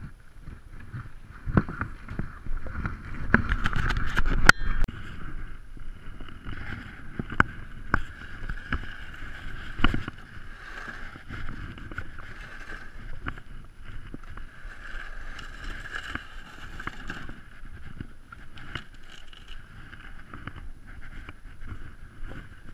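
A black sled loaded with buckets and fishing rods dragged over snow: the runners scrape while the gear knocks and rattles. There is a louder stretch of clattering and knocks in the first five seconds, then a steadier scraping with occasional knocks.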